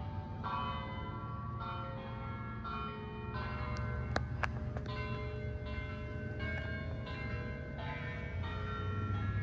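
Bells ringing a slow sequence of notes, a new strike about once a second, each note ringing on under the next, over a steady low rumble. Two sharp clicks sound a little after four seconds in.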